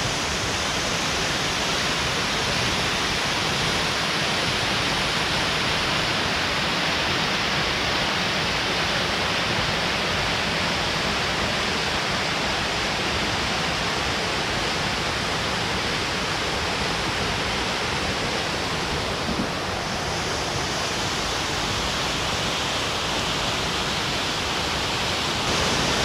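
Waterfall cascading over rock ledges: a steady rush of falling water, with a slight shift in tone about twenty seconds in.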